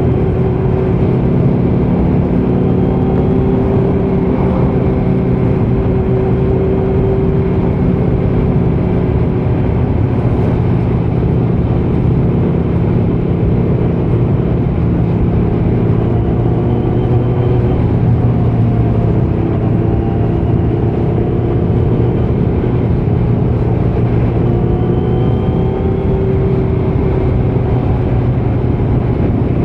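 Kawasaki Z900's inline-four engine running through a Leo Vince muffler with no dB killer, under way on the road. The engine note holds fairly even, drifting gently up and down in pitch.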